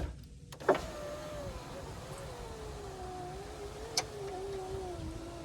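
Power window motor in a 2002 GMC Sierra's driver door running the glass on a newly replaced window regulator: a steady whine that sinks slowly in pitch as it labours, with a click about a second in and a sharp click about four seconds in. The owner takes the slowness for either a weakening motor or a window track that needs more grease.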